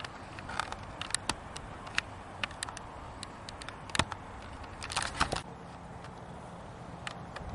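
Irregular sharp clicks and crackles over a steady hiss, with a quick cluster of clicks about five seconds in.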